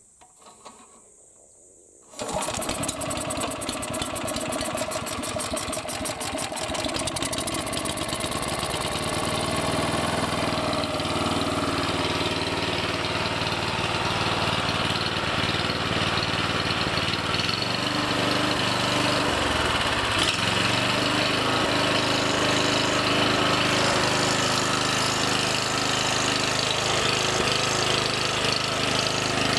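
Small engine of an OREC self-propelled slope mower starting suddenly about two seconds in, then running steadily.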